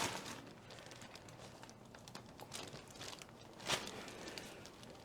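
Faint rustling and crinkling of a person moving on a chiropractic treatment table, with one louder, brief crinkle about three and a half seconds in.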